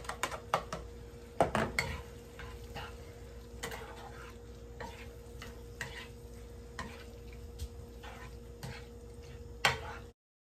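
A spatula stirring shrimp filling in a frying pan, with repeated scrapes and knocks against the pan and a light sizzle of food cooking. A faint steady hum runs underneath, and the sound cuts off abruptly just before the end.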